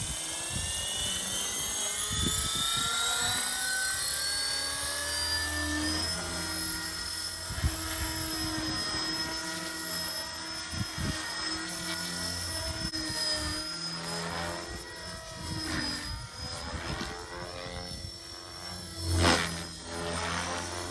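Align T-REX 470 electric RC helicopter spooling up, its motor and rotor whine rising in pitch over the first few seconds, then holding a steady high whine with the rotor beating underneath. A brief loud burst comes near the end.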